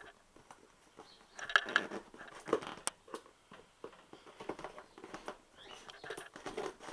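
Hands handling a cardboard shipping box, picking and scraping at its tape: scattered taps, scrapes and rustles, with a louder cluster between about one and a half and three seconds in.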